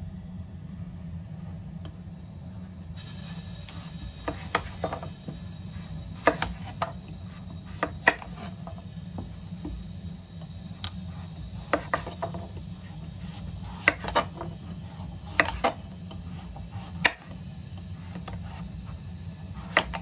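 A kitchen knife cuts slices off a wedge of pumpkin on a wooden cutting board, with irregular sharp knocks as the blade meets the board, about a dozen in all, over a steady low hum.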